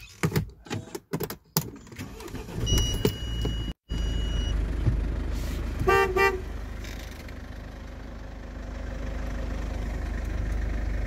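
Car engine running with a steady low rumble and two quick toots of the car horn about six seconds in. Before that come a few knocks of handling and a steady high beep lasting about a second and a half.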